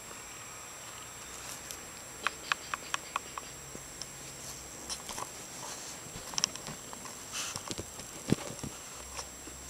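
A cat batting at a camera strap close against the phone: a quick run of about five sharp taps some two seconds in, then scattered taps and rustling, with the loudest knock near the end.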